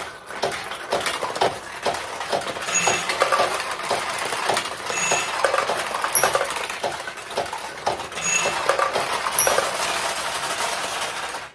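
Vintage Nishijin Model A pachinko machine in play: steel balls are launched in quick succession and clatter down through the pins, with paid-out balls rattling into the tray. Brief high rings sound about five times over the clatter.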